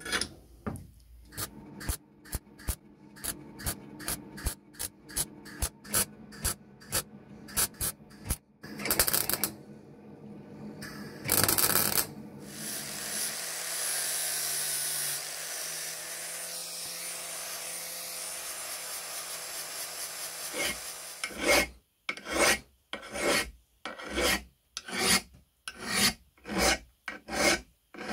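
Metal finishing on the cast housing of an antique meat grinder. Quick scraping strokes come first, then a small angle grinder with a sanding disc runs steadily for several seconds. Near the end there are regular push strokes of a hand file across the housing's fins, about one and a half a second.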